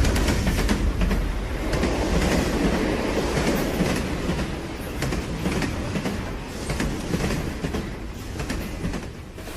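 Train running on rails, its wheels clattering over the rail joints over a heavy low rumble, gradually fading toward the end.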